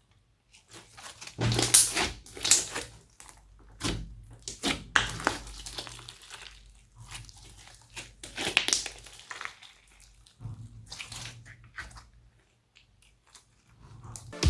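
Glossy slime being squished and mixed by hand, giving irregular crackling bursts, loudest about two seconds in and again around five and nine seconds.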